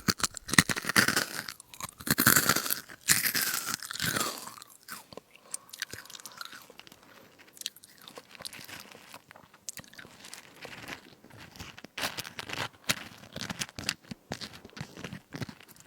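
Close-up eating of crunchy fruit crisps: loud biting and crunching for about the first four seconds, then softer, scattered chewing crackles.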